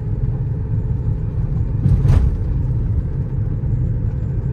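Vehicle on the move: a steady low rumble of engine and road, with one brief bump about two seconds in.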